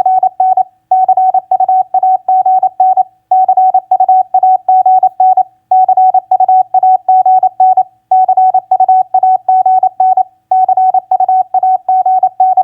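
Morse code (CW) tone sent at 28 words per minute: a single steady pitch keyed in quick dits and dahs, in groups of about two seconds with short pauses between them.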